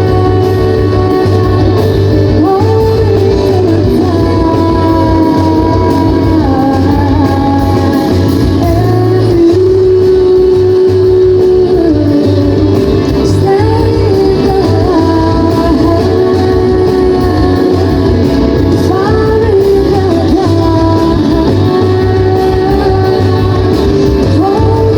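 A band playing a song live, with sung vocals over guitar and a steady low bass line, loud throughout.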